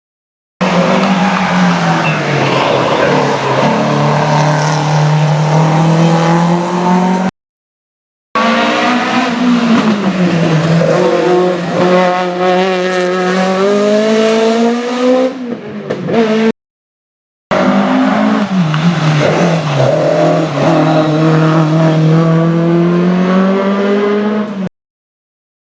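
Rally cars on a special stage, one after another, each engine revving hard, dropping in pitch and climbing again through the gears. Three cars in turn, separated by short cuts to silence.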